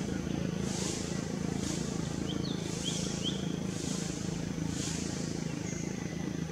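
Outdoor forest ambience: a steady low hum under a thin high tone and high hissy pulses about once a second, with a few short high chirps about two to three seconds in.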